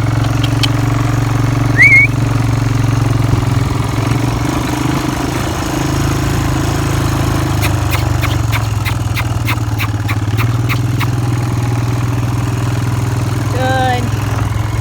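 Four-wheeler (ATV) engine running steadily while riding, with a short high rising squeal about two seconds in that is the loudest moment. A run of light ticks follows between about eight and eleven seconds.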